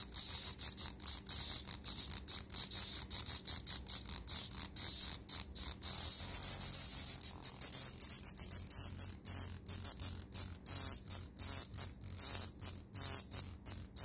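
A cicada held between the fingers buzzing, the harsh high-pitched distress squawk that a handled male cicada makes. It comes in rapid, stuttering on-off bursts, with one longer unbroken buzz about six seconds in.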